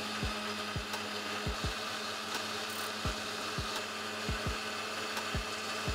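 Electric mixer-grinder with a stainless-steel jar running steadily at speed, blending a liquid smoothie of fruit and soya milk: an even motor whirr with a steady hum.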